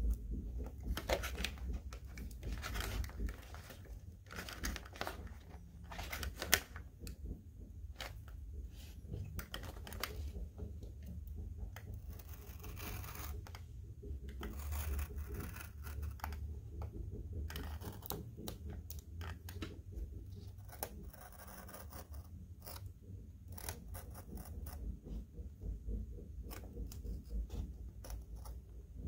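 Hobby knife blade scoring and cutting through thin grey card, a run of short scratching strokes with one sharp click about six and a half seconds in.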